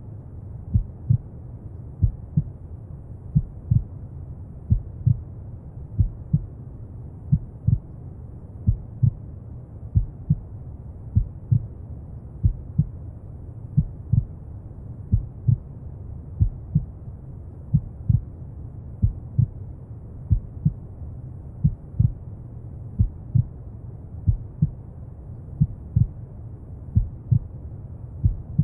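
A slow heartbeat, each beat a low double thump, repeating evenly a little over once a second over a steady bed of brown noise.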